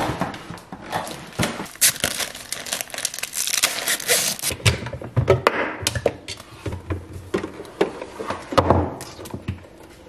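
Plastic packaging crinkling and rustling as a new Nespresso Vertuo Plus coffee machine is lifted out of its box and unwrapped. There are a few dull knocks as the machine is handled on the counter, about halfway through and near the end.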